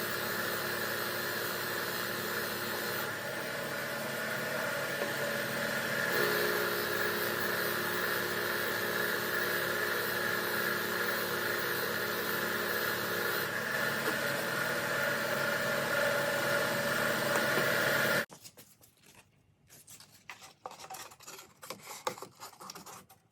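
Electric power tool running steadily while grinding rust off a steel pipe wrench, its tone shifting a few times as the work is pressed and moved. It cuts off suddenly about eighteen seconds in, leaving only faint scattered small sounds.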